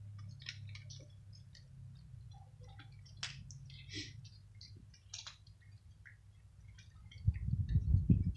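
Cats crunching dry kibble: many small, scattered clicks and crackles of chewing. Near the end, a louder low rumbling buffeting on the microphone takes over.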